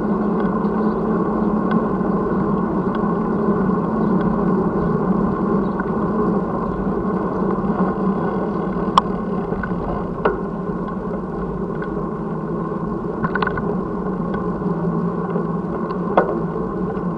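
Steady road rumble and wind noise picked up by an action camera mounted on a moving bicycle, with a few sharp knocks as it jolts over bumps in the pavement.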